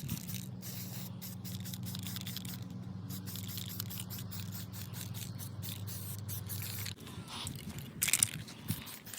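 Spray paint hissing on and off in short bursts as a wheel rim is painted, over a steady low hum that stops about 7 seconds in; a louder burst of spray comes about a second later.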